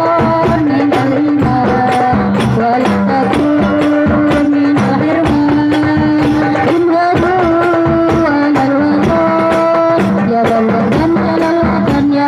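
Young woman singing a sholawat (Islamic devotional song) into a microphone, a held, wavering melody, over a running beat of hand-clapping from the group.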